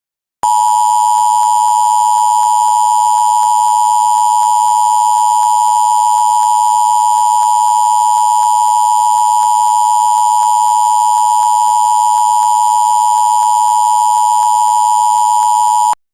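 Emergency Alert System attention signal: a loud, steady two-tone alert tone held for about fifteen seconds, cutting off abruptly near the end. It is the signal that follows the header data bursts and comes before the spoken severe thunderstorm warning.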